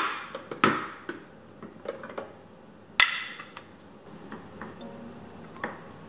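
Kitchen clatter during cooking: a string of sharp knocks and clicks, the loudest about three seconds in.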